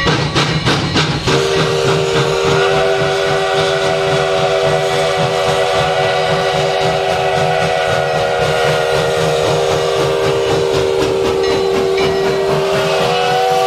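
Sierra Railway No. 3, a 4-6-0 steam locomotive, blowing its steam whistle in one long blast that starts about a second in. A single low note sounds first, and more notes join it a second later to make a full chord, held steady with the upper notes rising slightly near the end. The locomotive's low running noise continues beneath the whistle.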